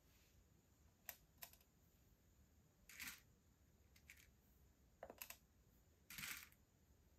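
Faint clicks and short rattles of small plastic fuse beads being picked with metal tweezers from a plastic organizer compartment and set on a pegboard: two light clicks about a second in, then three brief rattles of beads.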